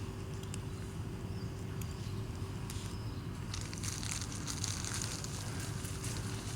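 Crunchy chewing of food, with fine crackly clicks that grow denser about halfway through, over a steady low background hum.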